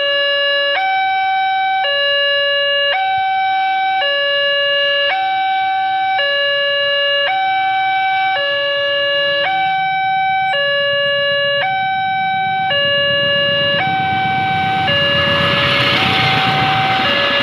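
Railway level-crossing alarm sounding its two-note electronic warning, a higher and a lower tone taking turns about once a second. About fifteen seconds in, the noise of a passenger train running past the crossing rises under it.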